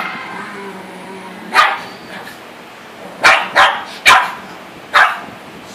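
A dog barking five short, sharp times: one bark about a second and a half in, then four more in quick succession over the next two seconds.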